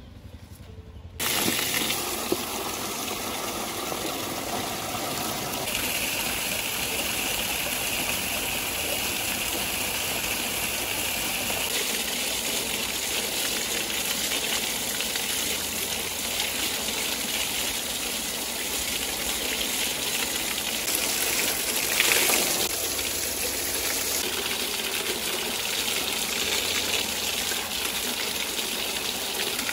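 Water gushing steadily from a pipe and splashing over vegetables being rinsed by hand. It starts suddenly about a second in.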